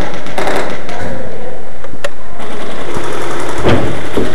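Airsoft rifles firing on full auto in short bursts, a rapid mechanical rattle, with one sharp click about two seconds in.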